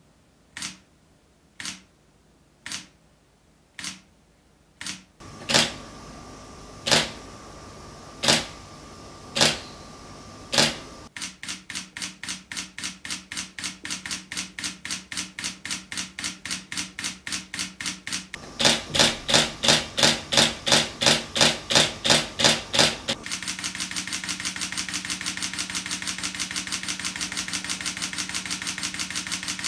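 Sony a6600 mirrorless camera's shutter firing. First come single shots about a second apart. About eleven seconds in it switches to continuous shooting at roughly three frames a second, and it goes faster, about six a second, in the last few seconds.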